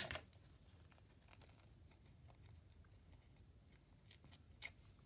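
A sharp tap at the start, then faint scattered crinkles and rustles of a thin paper napkin being handled, with a slightly louder rustle near the end.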